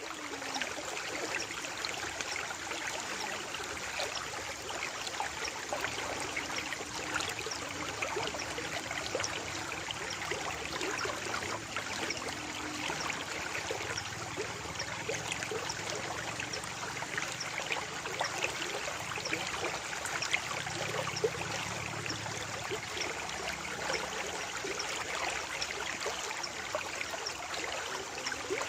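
Running water, babbling steadily with many small splashes and trickles.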